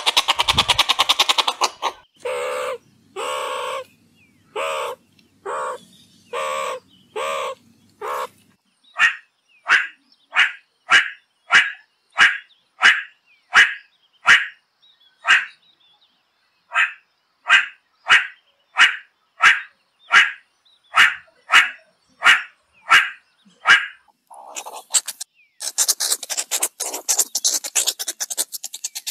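Meerkat calls. A fast rattling trill opens the sequence, followed by a run of calls about one a second. Then comes a long series of short, high chirps about two a second, and near the end a spell of hissing chatter.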